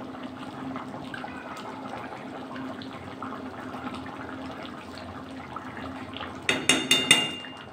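Chickpea and paneer curry bubbling and being stirred with a spoon in a metal kadai: a steady wet sloshing, then a quick run of sharp clicks as the spoon knocks against the pan near the end.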